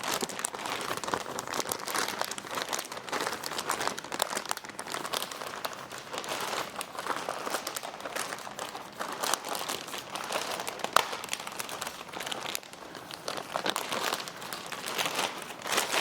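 Plastic packaging crinkling and rustling as chair parts are unwrapped and handled, with many small clicks and crackles.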